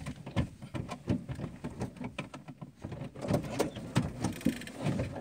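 Scuffle inside a car: a run of irregular knocks, bumps and clothing rustle as people grapple in the seats, with a brief high rasp about four seconds in.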